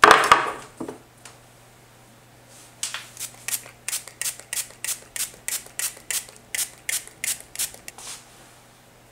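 A metal baking tray clatters as it is set down. Then a hand-pump spray bottle spritzes water onto the risen sesame-seed dough balls, around seventeen short hissing sprays at about three a second.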